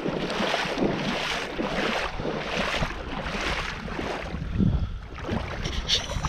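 Rhythmic swishing of water, a stroke roughly every two-thirds of a second, with wind on the microphone. There is a short sharp click near the end.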